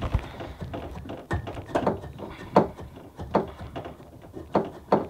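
A hand loosening the hot and cold water-line fittings under an RV kitchen sink, with short clicks and knocks at uneven intervals as the fittings and pipes are handled.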